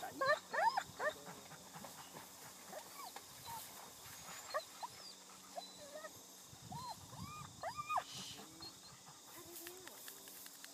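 A dog whining in short, high yelps that rise and fall in pitch, a cluster in the first second and another about seven seconds in.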